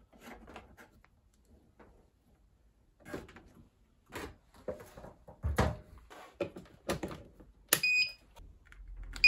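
Scattered knocks and handling noises as a washing machine's inlet hose is screwed onto a tap. About eight seconds in, a wall switch clicks on and the newly fitted SXY3388 universal washing machine control board gives a short electronic beep at power-up. A second, louder beep comes at the very end, as a low hum starts.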